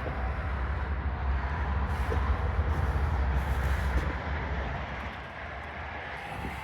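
2009 John Deere 410J loader backhoe's diesel engine running with a steady low rumble, easing off to a quieter level about five seconds in.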